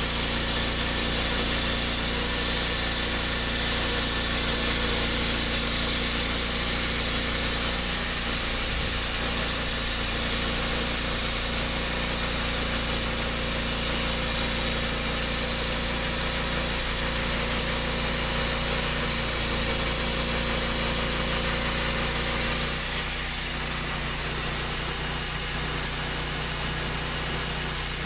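An engine running steadily, with a strong high hiss over it; its note shifts about 23 seconds in.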